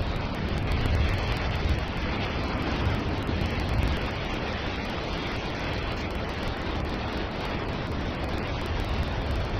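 Wind buffeting the microphone: a steady, even rushing noise with a heavy low rumble.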